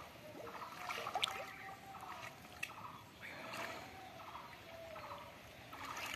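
Faint splashing and sloshing of bare hands groping for fish in shallow muddy water, with short calls repeating faintly in the background.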